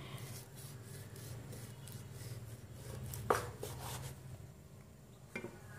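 A kitchen knife slicing through raw pork loin on a wooden chopping board: faint cutting and scraping strokes, with a sharp knock of the blade on the board about three seconds in and a lighter one near the end.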